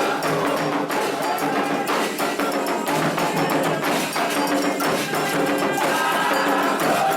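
Candomblé ritual music: atabaque hand drums beating a fast, dense rhythm with a struck agogô bell, under voices singing a chant to the orixás.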